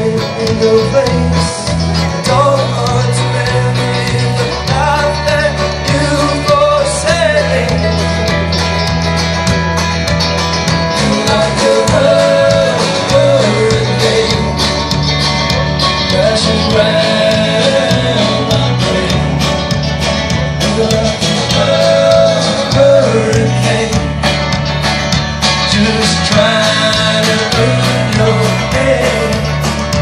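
Live folk-rock band playing a song, amplified through a PA: guitars and drums under a steady bass line, with a lead vocal singing over them.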